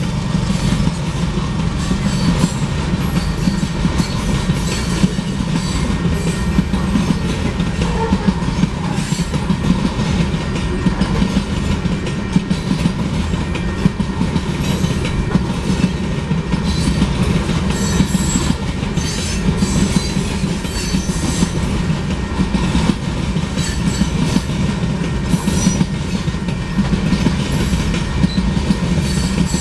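Freight train cars rolling steadily past a grade crossing: a loud, continuous low rumble with rapid clicking of the wheels over the rail joints.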